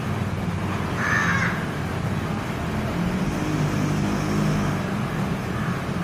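A crow gives a single short caw about a second in, over a steady background rumble with a low drone.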